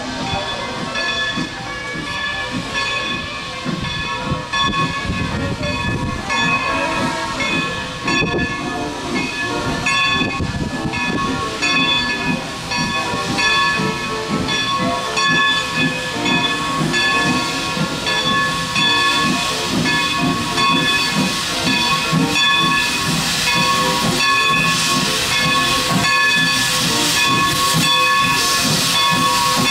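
Steam locomotive No. 40, a Baldwin 2-6-2, drifting in at low speed with its exhaust beating and its open cylinder cocks hissing. The hiss grows louder as it nears, over a steady high ringing tone.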